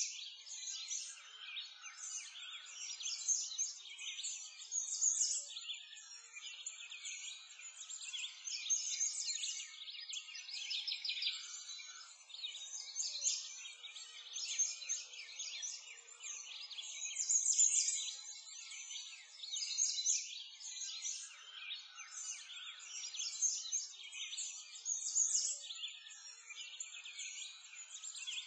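A dense chorus of many birds chirping and singing at once: short high calls and trills overlapping without a break, swelling and fading every second or two.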